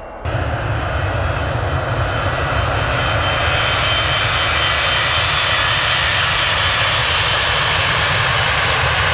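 Jet airliner engines running loud and steady at takeoff power, cutting in suddenly just after the start.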